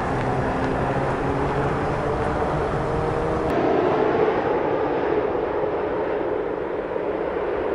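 Steady jet engine noise from a Boeing 787-9 on the runway, cut about three and a half seconds in to the four engines of a Boeing 747-8 freighter passing low on landing approach with its gear down.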